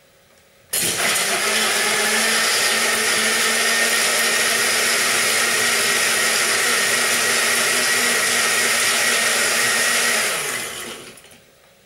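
Countertop blender running at a steady pitch, blending ice cubes, water and strawberries into a smoothie. It starts suddenly less than a second in and winds down about ten seconds in.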